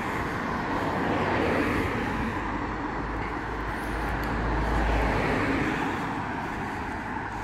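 Road traffic: cars driving past on the street alongside, a steady wash of engine and tyre noise that swells into a low rumble about four to five seconds in as a vehicle passes close.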